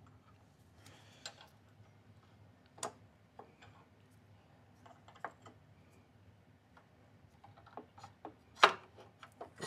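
Scattered light metallic clicks and taps of a motorcycle front brake caliper being slipped over the brake disc, with a sharper knock about eight and a half seconds in.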